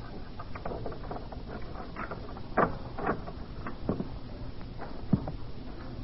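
Sound effects of someone coming in quietly, a door and soft footsteps: irregular taps and clicks over a faint hiss, the loudest a little past two and a half seconds in.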